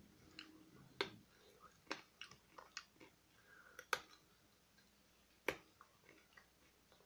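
A person biting and crunching a hard candy cane close to the microphone: sharp irregular cracks, the loudest about a second in, near two seconds, near four seconds and about five and a half seconds in, among smaller chewing clicks.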